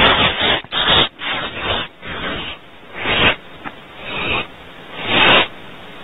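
Barn owl nestlings giving harsh hissing begging screeches at a prey delivery. The calls come as a string of noisy bursts about half a second long, roughly once a second, some louder than others.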